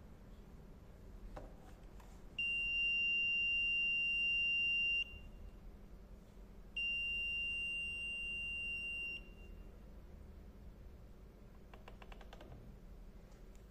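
Kingbolen BF200 brake fluid tester sounding its alarm: two long, steady, high-pitched beeps, each about two and a half seconds, with a short pause between. The alarm signals a moisture content in the brake fluid of about 3–4%, fluid at its limit and due for replacement.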